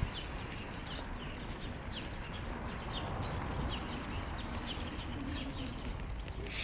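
Small birds chirping in the trees: many short, falling chirps, several a second, over a steady low background rumble.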